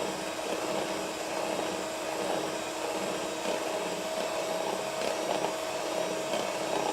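Electric mixer running steadily with an even motor whine, its beaters whipping non-dairy whipped cream in a small bowl.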